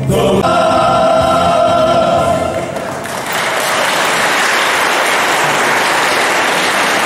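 Male choir singing, ending on a held chord; about three seconds in the audience breaks into steady applause.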